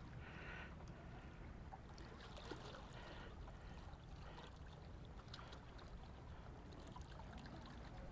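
Quiet outdoor ambience on a lake: a steady low rumble with faint water sounds and a few scattered soft ticks, and no clear single event.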